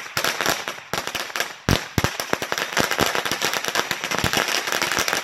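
An 8,000-round string of Black Cat firecrackers going off in a rapid, unbroken crackle of bangs, with one louder report about a second and a half in.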